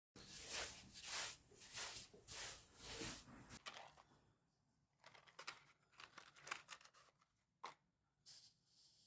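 A hand tool scraping along the timber of a log in repeated rough strokes, about six in the first three and a half seconds, followed by scattered light clicks and taps.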